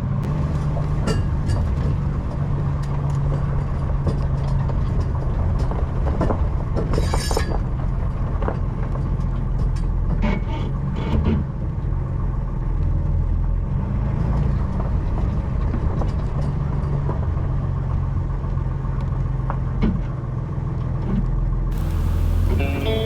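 A heavy engine running steadily, with irregular knocks and clanks over it. Guitar music comes in just before the end.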